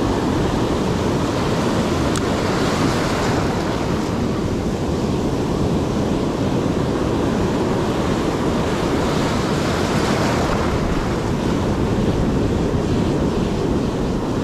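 Ocean surf washing up the beach, a steady rush of breaking waves that swells louder twice, with wind rumbling on the microphone.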